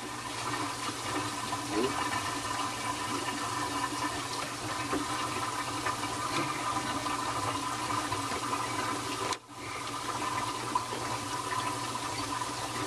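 Water running steadily through a reef aquarium's plumbing, with a faint steady hum. The sound drops out briefly about nine seconds in.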